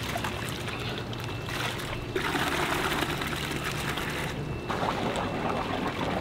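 Water splashing and pouring as live shiners are dropped from a dip net into a bucket, then the bucket of fish and water is poured into a plastic bag. Aerated holding tanks bubble under it.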